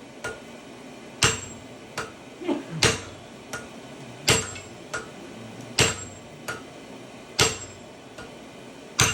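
Blacksmith's sledge and hand hammer striking hot iron on an anvil while forging. Heavy ringing blows land about every second and a half, with lighter taps in between.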